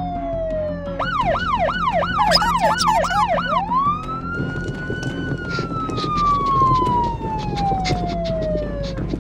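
Police car siren: a slow falling wail, then a fast yelp rising and falling about three times a second, then a long rise and a slow fall.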